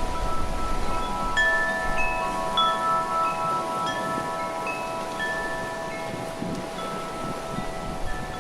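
Wind chimes ringing, tubes struck at irregular moments so that several long, overlapping notes of different pitches hang together, with wind rumbling on the microphone underneath.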